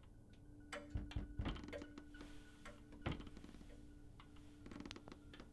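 Faint knocks and thuds, several in quick succession about a second in and one more about three seconds in, over a low steady drone.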